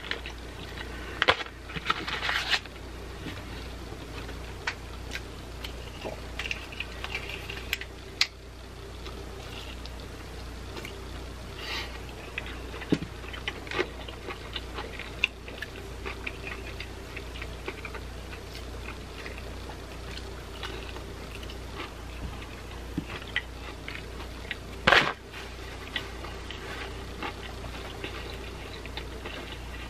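Close-miked chewing of breaded fried chicken tenders: irregular wet mouth clicks and small crunches, with louder bursts of crunching or food handling about two seconds in and again near 25 seconds, over a steady low hum.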